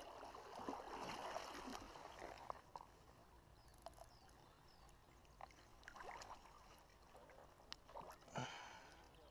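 Faint sloshing and small splashes of river water stirred by a hand working around a hooked pike, with a few small clicks. There is a brief louder splash near the end.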